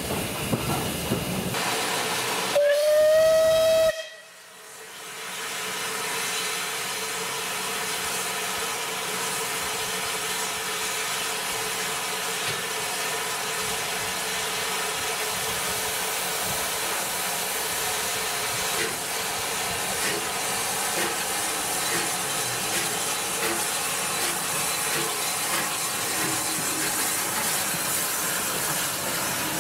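Steam whistle of Bulleid West Country class locomotive 34027 'Taw Valley', one loud blast of about a second and a half that comes about two and a half seconds in. Then a steady hiss of escaping steam as the engine pulls away from the platform, with faint chuffs in the later part.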